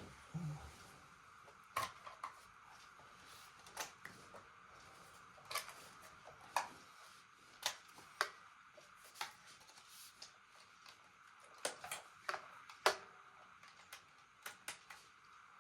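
Scattered sharp clicks and knocks, with one low thud near the start, from guitar pedals and jack cables being handled as the pedal chain is rewired in a new order. A faint steady hiss lies underneath.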